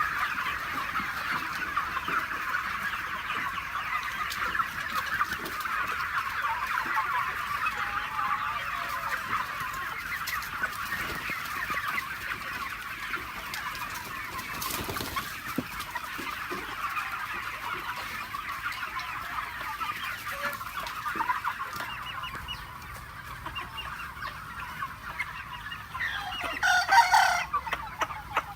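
A flock of free-range chickens clucking and chattering continuously, with a rooster crowing loudly once near the end.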